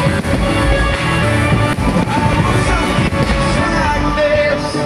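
Loud music with singing, with a couple of faint firework bangs about two and three seconds in.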